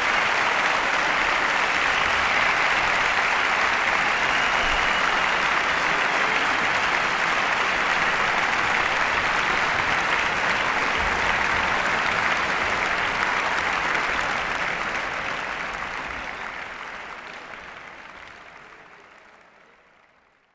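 Concert audience applauding steadily, the applause fading out over the last several seconds.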